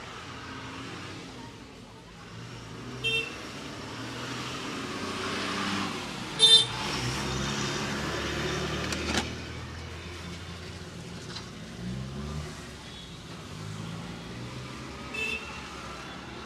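Street traffic with engines passing. Three short horn toots sound, about 3 seconds in, at about six and a half seconds (the loudest), and near the end.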